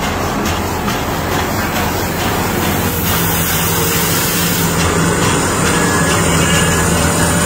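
Heavy diesel asphalt distributor truck running steadily as it moves slowly along the road, its engine giving a constant low hum under a wide wash of noise.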